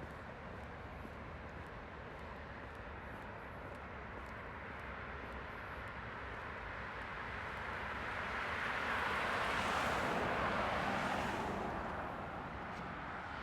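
A vehicle passes, its noise building for a few seconds, peaking about ten seconds in and fading away soon after, over a steady background of outdoor traffic hum.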